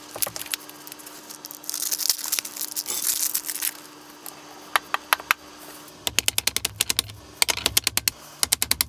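Bearings and their packaging being handled on a workbench: small clicks and a rustle of wrapping, then from about six seconds in, quick runs of sharp metal clicks, several a second, as the parts are worked at the vise during bearing installation.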